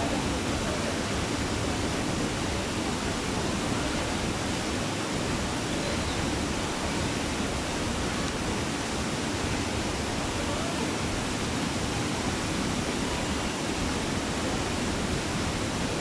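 Tall waterfall plunging into a rocky pool, its falling water rushing in a steady, unchanging wash of noise.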